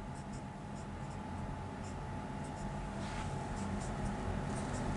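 Marker pen writing on a whiteboard: a run of short, faint strokes as small symbols are drawn.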